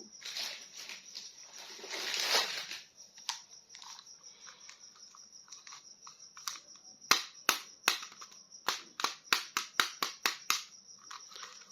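Handling of plastic toy packaging: crinkling and rustling for the first few seconds, then a quick series of sharp plastic clicks, about four a second, over the later part.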